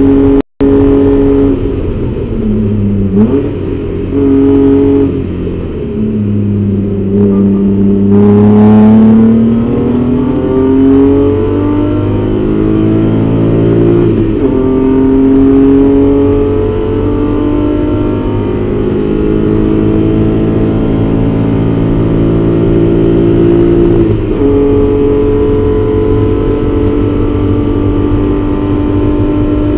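BMW 325is race car's straight-six at high revs, heard inside the cabin, slowing with downshifts and then pulling hard through the gears, with upshifts at about 14 and 24 seconds in. The sound cuts out completely for a moment about half a second in.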